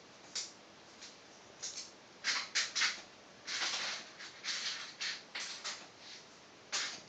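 Glass marbles rolling and rattling along the copper-wire tracks of a mechanical marble binary adder, with irregular sharp clicks and clacks as they strike the wire rockers and spirals. Sparse at first, busier with short rattling runs from about two seconds in.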